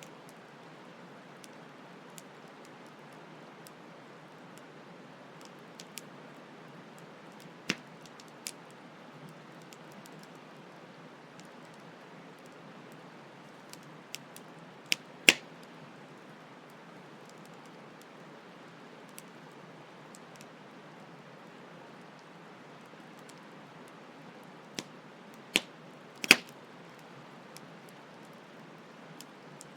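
Campfire crackling, with occasional sharp wood pops, the loudest about halfway through and again near the end, over a steady rush of flowing stream water.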